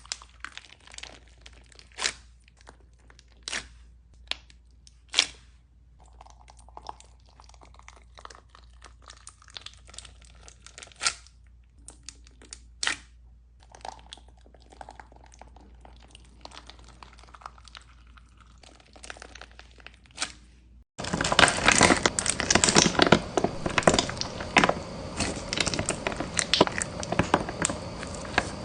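Crunchy bead-filled slime being squeezed and pressed: scattered sharp pops and crackles at first, then about 21 seconds in, a much louder, dense run of crunching crackles.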